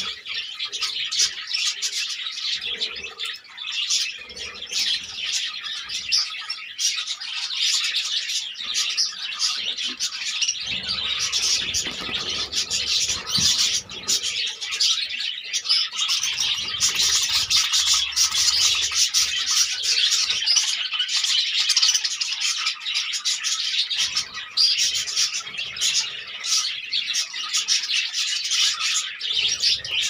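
A flock of budgerigars chattering and chirping without a break, many small calls overlapping.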